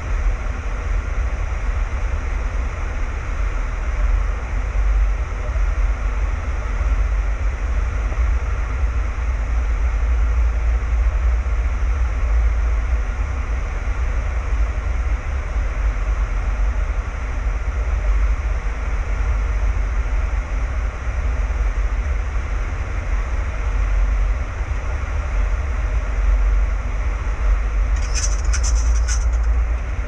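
Boeing 737-800 flight-deck noise in flight: steady rushing airflow and engine drone over a heavy low rumble that wavers, while the aircraft is bumped about in gusty turbulence on approach. A brief high-pitched crackle sounds near the end.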